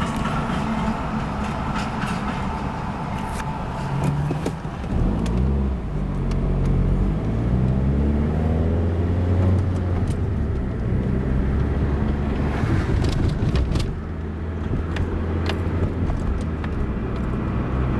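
Diesel locomotive engines running: a deep, steady rumble whose pitch slides up and down between about four and ten seconds in, with scattered clicks.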